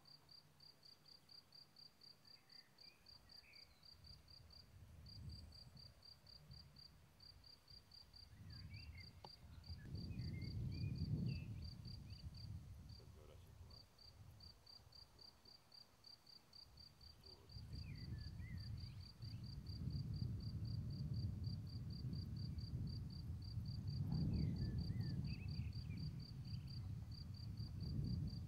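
A cricket chirping steadily at a high pitch, about four to five chirps a second, with a few short bird calls now and then. From about eight seconds in, gusts of wind buffet the microphone with a low rumble that comes and goes and is the loudest sound.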